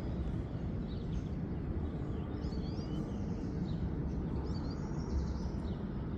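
Birds chirping in short phrases every second or two, over a steady low rumble of outdoor background noise.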